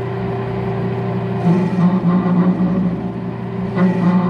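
Metal lathe running with a steady motor hum while turning a steel Model T driveshaft. About a second and a half in, the cutting tool bites in to break the shaft's edge and a loud, uneven cutting noise starts; it eases off and comes back near the end, a cut the shaft 'doesn't like'.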